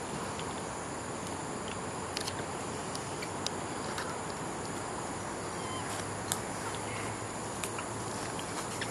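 Steady outdoor background hiss with a faint, steady high tone, broken by a handful of brief, sharp clicks scattered through.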